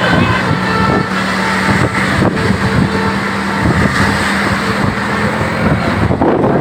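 A large bus engine running close by with a steady drone amid busy road traffic noise; the drone stops about five and a half seconds in.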